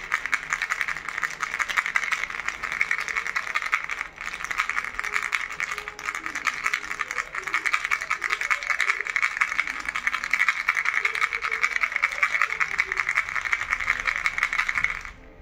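Baby's fish-shaped toy rattle shaken fast and steadily, its beads making a dense, continuous rattling with a brief pause about four seconds in. It stops suddenly near the end.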